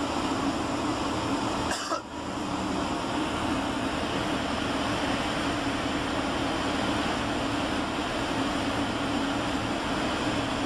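Steady cabin noise of a Boeing 757-300 airliner on final approach: an even rushing roar of airflow and engines with a low hum. About two seconds in the sound drops out briefly.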